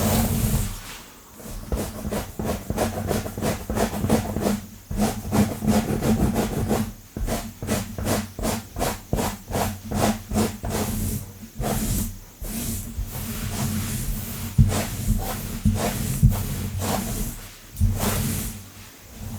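Long fingernails scratching and raking quickly through hair and over a scalp close to the microphone: quick, rough strokes, about three a second in the middle.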